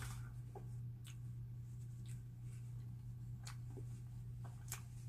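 Someone eating a soft cream-filled roll cake: faint, scattered mouth clicks and smacks over a steady low hum.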